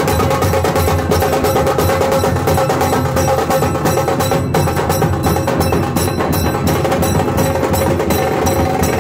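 A group of large double-headed dhol drums beaten with sticks in a fast, dense, steady rhythm, with a ringing tone held under the beats.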